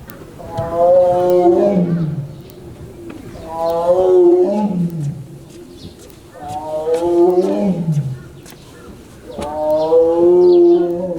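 A big cat roaring four times, drawn-out calls about three seconds apart, each dropping in pitch at the end.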